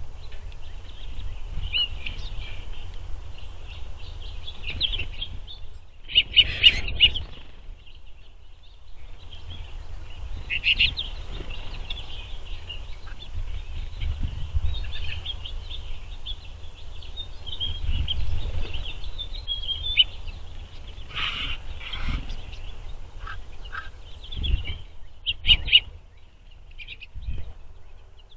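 Small finches calling and twittering at a feeder, a near-continuous chatter with louder flurries about six seconds in and again near the end, over a steady low rumble.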